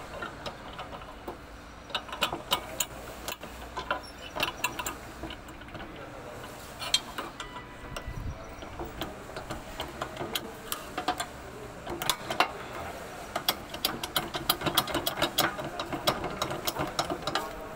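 Irregular metallic clicks and light taps as needle-nose pliers work a small steel lock pin into a hole in a power weeder's steel bracket. The clicks grow thicker in the last few seconds.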